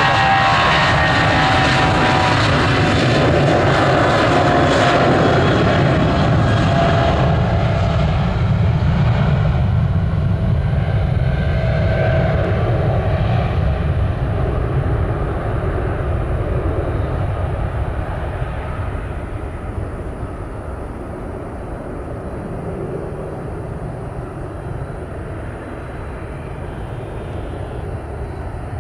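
Boeing 737's twin jet engines at takeoff thrust during the takeoff roll and climb-out, with whining fan tones over a steady rumble; it is loudest at first and fades from about seven seconds in as the jet climbs away.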